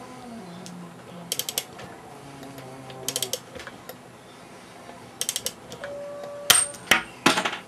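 Hand ratchet wrench clicking in three short quick runs, then a couple of sharp metal clinks from tools or engine parts near the end.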